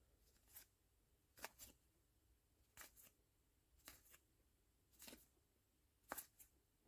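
Trading cards from a booster pack being slid through by hand one at a time: faint, short swishes about once a second, often in quick pairs.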